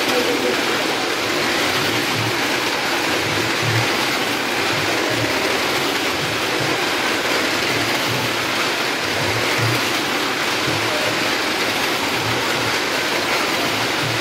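A car circling the vertical wooden plank wall of a 'well of death' stunt drum: a loud, steady wash of engine and tyre noise on the planks, with low thuds at irregular intervals.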